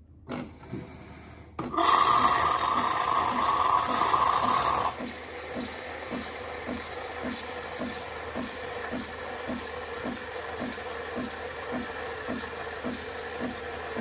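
Nespresso Lattissima One frothing oat milk. After a couple of clicks the machine starts with a loud hiss for about three seconds, then settles into a steady pulsing, a little under three beats a second, as frothed milk pours from the wand.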